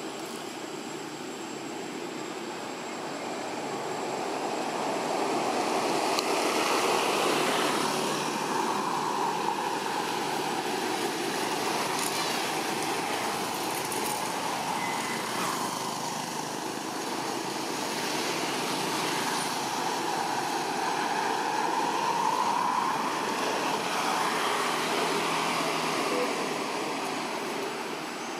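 Steady rushing background noise that swells louder twice, about five seconds in and again around twenty seconds in.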